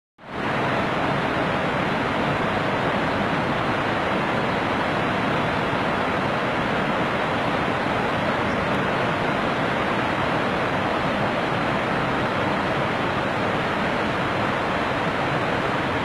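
Waterfall: a steady, unbroken rush of falling water, fading in at the very start.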